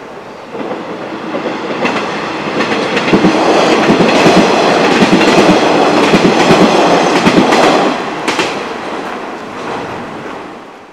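KiHa 40-series diesel railcar passing, its wheels clattering rhythmically over the rail joints. It grows louder, is loudest in the middle, then fades away near the end.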